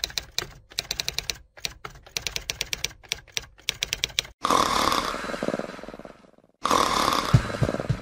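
Typewriter-style clicking sound effect, in quick bursts of keystrokes for about four seconds. Then a loud hissing wash fades out over about two seconds, and a second one starts with low thumping beats near the end.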